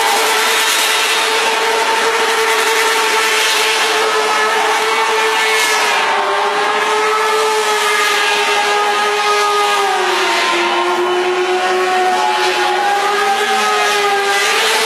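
Motorcycle engine held at high revs during a burnout, spinning its rear tyre into smoke. The steady engine note sags about ten seconds in and climbs back.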